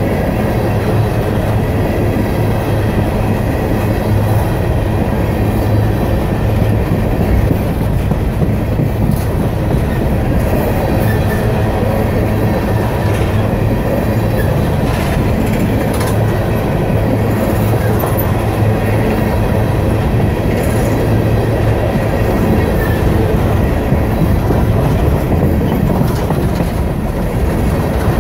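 Empty aluminium coal hopper cars of a freight train rolling past close by: a steady rumble of wheels on rail, with clickety-clack, scattered clanks and a few faint wheel squeals.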